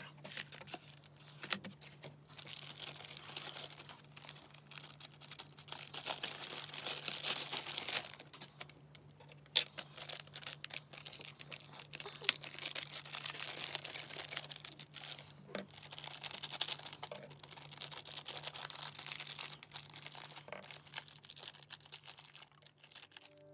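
Close-up crinkling and rustling of a clear plastic packaging sleeve as an Apple Pencil cover is drawn out of it. Scattered light taps and clicks of things set down on the desk come through, over a low steady hum.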